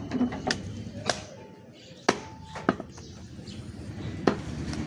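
Butcher's cleaver chopping beef on a round wooden chopping block, about five sharp separate strikes spaced unevenly, the two in the middle the loudest.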